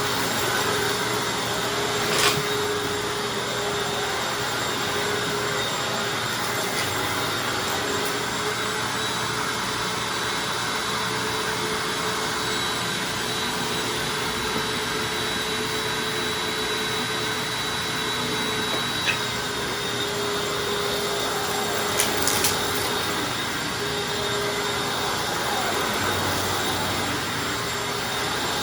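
Hoover Anniversary upright vacuum cleaner running steadily while it picks up a heavy spread of dirt, its motor giving a constant hum and airflow rush. A few sharp clicks cut through it, about two seconds in and again near the end.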